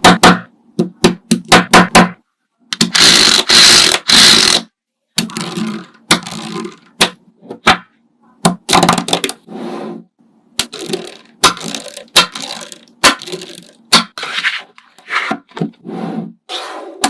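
Crafting and handling sounds of a DIY toy being made: a string of sharp clicks and taps and short scraping and rustling bursts, with one longer rustling hiss about three seconds in.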